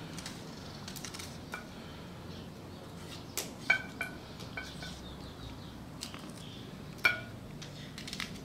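A small paring knife slicing an onion held in the hand over a bowl: scattered light clicks and cuts, with a few sharp clinks that ring briefly. The loudest clink comes about three and a half seconds in and another about seven seconds in.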